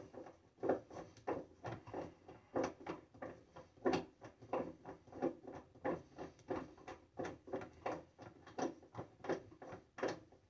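Screw being driven by hand into the wood of a box: a run of short creaking clicks, about two to three a second, as each turn of the screwdriver bites.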